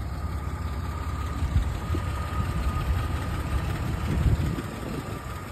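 Jeep Cherokee XJ's 4.0-litre straight-six idling, a steady low rumble with a thin steady whine above it.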